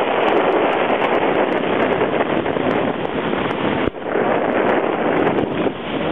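Steady rushing noise of wind buffeting the microphone of a camera riding a plastic snow bob sliding fast down a snowy ski slope, mixed with the sled hissing over the snow. The noise briefly drops out about four seconds in.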